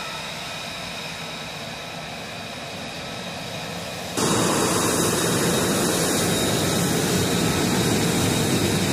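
F-35B Lightning II's F135 turbofan running at taxi power: a steady whine with several high tones over a rushing hiss. About four seconds in it jumps abruptly to a much louder, fuller rushing roar that holds steady.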